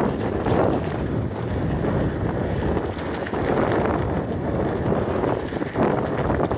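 Wind buffeting the microphone of a camera on a moving mountain bike, a continuous loud rush with many small rattles and knocks from the ride.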